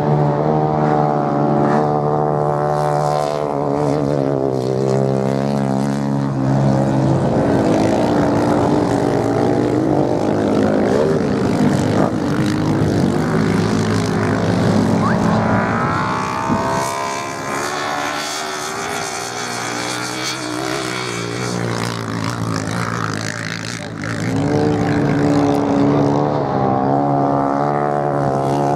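Racing motorcycle engine on a beach sand track, its note rising and falling as the rider accelerates and backs off around the course. It is quieter a little past the middle and loud again near the end.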